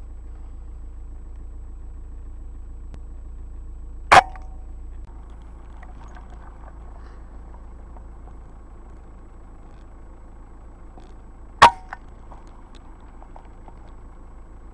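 Two air rifle shots about seven and a half seconds apart, each a sharp crack followed by a brief ringing tone, over a steady low background rumble.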